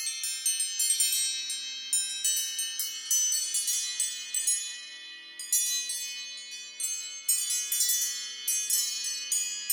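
iPhone ringtone of bright, high chime-like notes struck in quick succession, each ringing on over the next, the loudness swelling and fading in waves.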